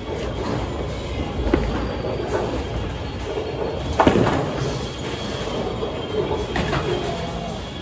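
Bowling alley: a low rumble of a bowling ball rolling down a wooden lane, with a loud crash of pins about four seconds in and a few fainter knocks of pins.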